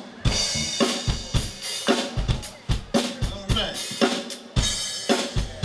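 A live band's drum kit playing a steady beat, with kick and snare hits about twice a second and cymbals, other instruments faintly underneath.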